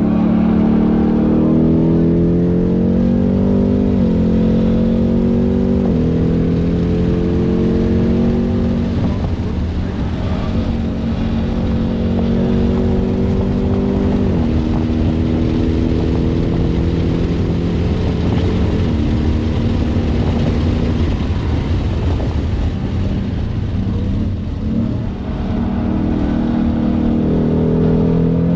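Ford Mustang Mach 1 engine under hard acceleration on a race track. The revs climb and drop sharply at gear changes about four, six and fourteen seconds in, ease off in between, and climb again near the end, over steady road and wind noise.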